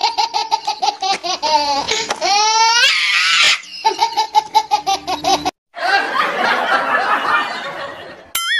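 Laughter sound effect: rapid, evenly spaced 'ha-ha-ha' bursts with a rising swoop in the middle. After a brief cut about five and a half seconds in, the laughter turns noisier, and a short warbling cartoon tone comes in at the very end.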